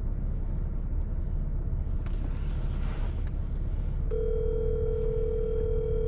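A phone's ringback tone, the ring of an outgoing call waiting to be answered, starts about four seconds in and holds one steady pitch for about two seconds. It plays over a low, steady rumble inside the car.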